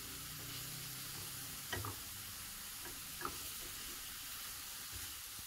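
Chopped onion and seasonings sizzling steadily in ghee in a stainless steel skillet while being stirred with a silicone spatula, which knocks softly against the pan a couple of times.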